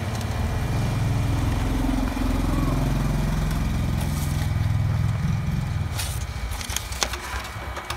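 HP Color LaserJet Pro MFP M177fw colour laser printer printing a page, its motors and paper-feed rollers running steadily. The running eases off near the end, with a few sharp clicks.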